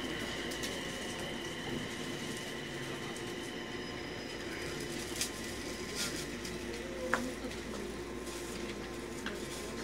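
Inside a JR East E721-series electric train car: a steady hum and hiss of the car, with a few faint sharp clicks scattered through.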